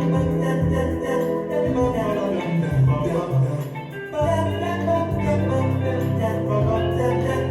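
Music: a song with singing over instruments and a bass line.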